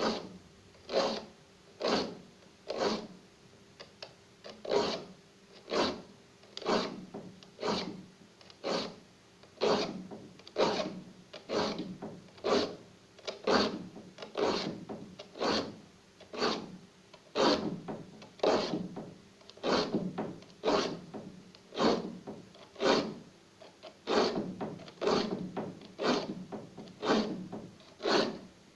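A hand file being drawn across the teeth of a wood handsaw, sharpening it. There are steady rasping strokes, about one a second.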